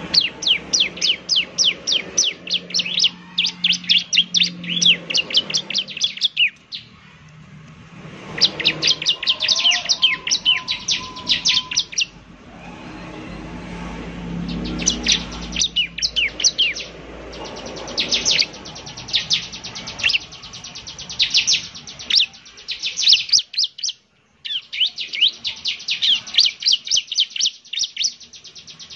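Bar-winged prinia (ciblek) song: long bouts of rapid, high chattering notes, about ten a second, each bout lasting several seconds with brief gaps between them.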